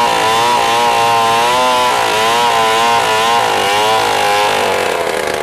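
Two-stroke chainsaw running at high speed as it cuts into a large log, its engine note wavering as the chain bites into the wood, then dropping about four and a half seconds in.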